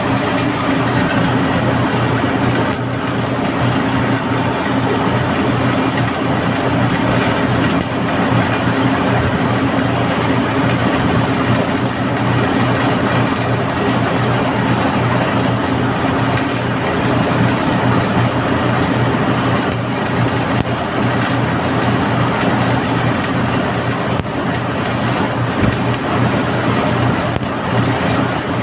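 A machine running steadily with a constant low hum over a broad noisy whir, unchanging throughout.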